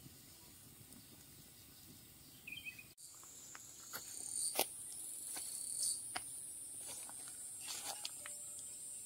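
Insects trilling steadily at a high pitch, beginning abruptly about three seconds in, with scattered sharp clicks and knocks over it.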